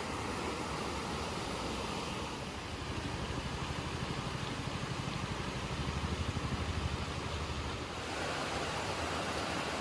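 A motor engine running with a low, even throb over a steady rushing background noise; the throb comes in about two and a half seconds in and fades out near eight seconds.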